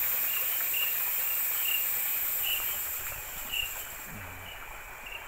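Night insects: a steady high-pitched drone with a cricket-like chirp repeating about once or twice a second. The high drone drops away about four seconds in.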